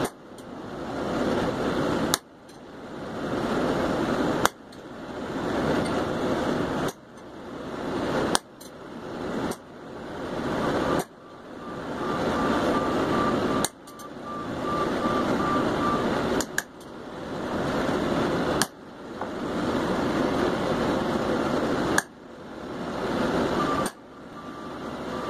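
Hammer blows on hot steel, marking the vein lines into a forged leaf: about eleven sharp strikes one to three seconds apart, with a steady rushing noise between them.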